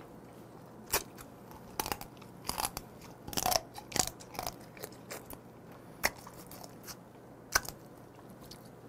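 A person sucking raw blue crab meat out of pieces of shell and chewing it, with irregular short clicks and crunches from the shell and a few brief slurps.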